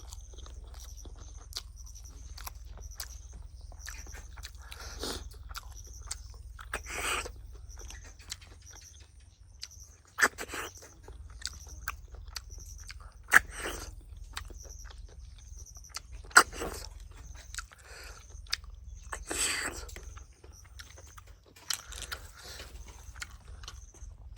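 A person eating cooked snails close to the microphone: chewing and biting noises, with three sharp clicks about three seconds apart near the middle, over a steady low hum.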